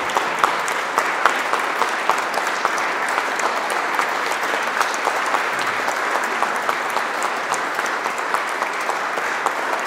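A congregation applauding: many hands clapping steadily in a dense, even spread of claps.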